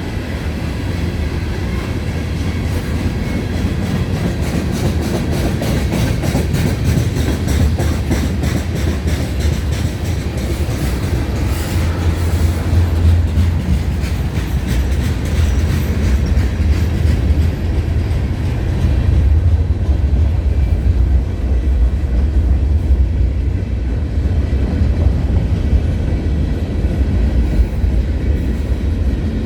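Freight train cars rolling past at speed: a steady low rumble with rapid, evenly spaced clicking of wheels over rail joints through the first half, easing off later.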